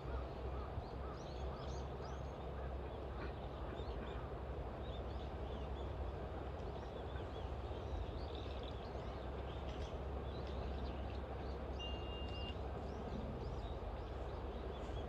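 Outdoor ambience of many birds chirping and calling in short, quick notes, with one brief held whistle-like note about twelve seconds in, over a steady low rumble.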